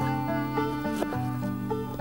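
Background folk music: a harmonica holding and bending notes over plucked string accompaniment.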